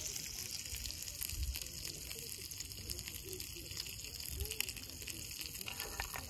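Bacon frying in a pan, a steady sizzling hiss with fine crackles throughout.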